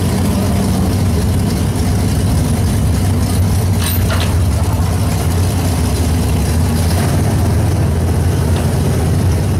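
Full-size pickup truck's engine running steadily with a deep low drone while hitched to a truck-pull weight sled, without a hard rev. A brief sharp click about four seconds in.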